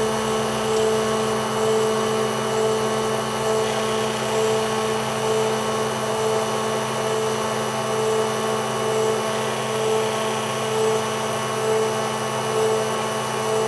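Spindle motor of a homemade CNC engraver running at a steady pitch, with one tone in its hum swelling and fading a little more than once a second.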